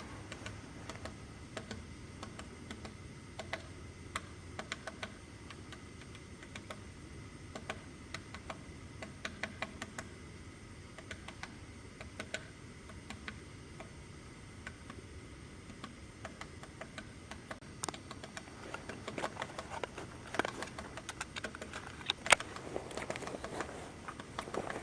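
Woodpecker pecking at wood: irregular sharp taps, sometimes single and sometimes in quick little clusters, growing denser and louder near the end.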